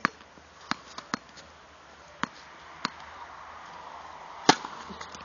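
Tennis rally on a hard court: about six sharp pops of the ball being struck by rackets and bouncing, spaced irregularly, with the loudest strike near the end.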